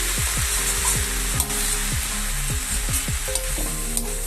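Leafy greens (khosla shak) sizzling as they fry with spices in hot oil in a pan, being stirred.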